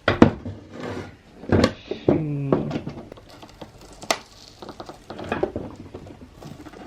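Tools and hands working a plastic electronics housing during disassembly: a series of sharp clicks and knocks, irregularly spaced, with a brief hummed vocal sound about two seconds in.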